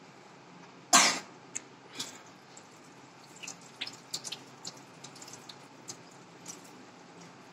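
Thin stream of water from a bathroom tap falling into a ceramic washbasin and over a child's hand, with scattered small drips and splashes. One short loud burst about a second in, and a smaller one a second later.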